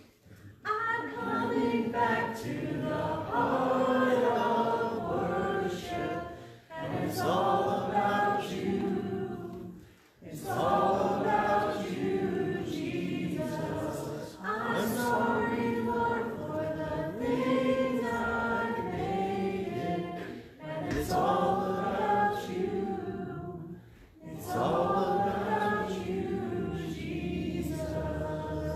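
A woman singing a Christian song, with choir-like vocal harmonies, in sung phrases of three to four seconds separated by short breaths.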